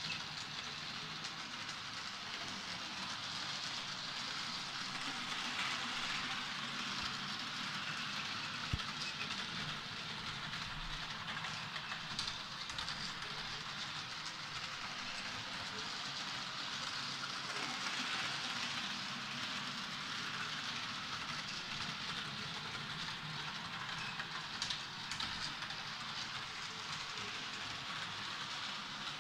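H0-scale model train running along the layout's track: a steady whir of its small electric motor with the light rattle of its wheels on the rails.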